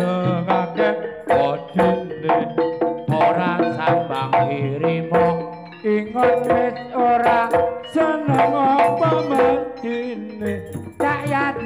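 East Javanese jaranan ensemble playing live: kendang hand drums and gamelan gong-chime notes in a fast, busy rhythm.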